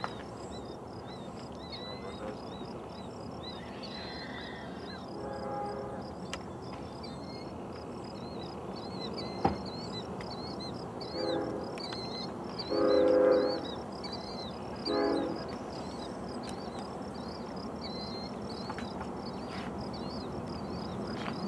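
Distant Union Pacific passenger train's locomotive air horn sounding: one faint blast about five seconds in, then three blasts close together a few seconds later, the middle one longest and loudest. Small birds chirp steadily behind it.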